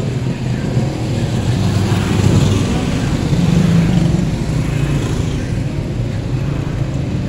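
Busy street traffic dominated by small motorcycle engines running and passing close by, swelling louder about two to four seconds in.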